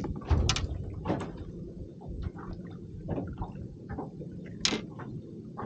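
Irregular light knocks, clatter and splashing of fishing gear and a fish being handled in a boat, over a faint steady low hum, with one sharp click near the end.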